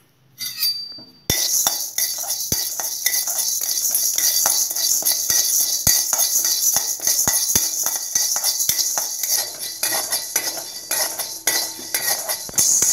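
Whole urad dal being dry-roasted without oil in a stainless steel kadai: the grains are stirred around the pan, rattling and scraping, with a utensil clinking on the metal. It starts about a second in and then runs on as a dense stream of clicks and scraping.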